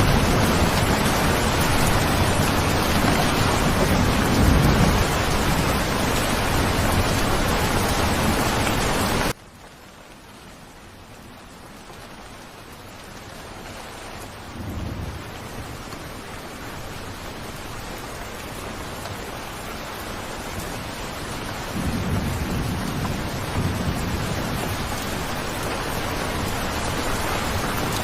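Steady rain with low rolls of thunder. About a third of the way in, the rain cuts off abruptly to a much quieter level, then slowly swells back up, with further thunder rumbles later.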